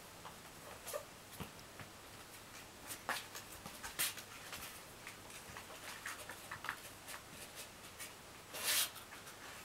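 Light, scattered scratching and rustling from a kitten's claws and paws moving on fabric upholstery, with a sharp tick about four seconds in and a longer, louder rustle near the end.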